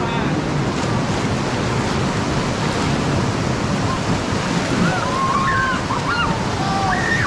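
Whitewater rapid running as a steady rushing roar. From about five seconds in, people shout over it.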